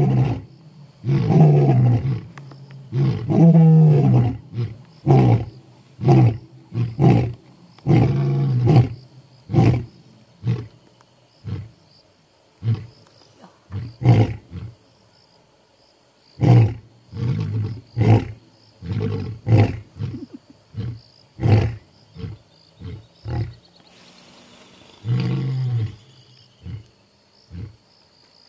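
Male lions roaring: two bouts, each of a few long, deep roars that trail off into a string of shorter grunts, with a pause of a few seconds between them and one more roar near the end. This is the territorial roar lions use to announce their presence.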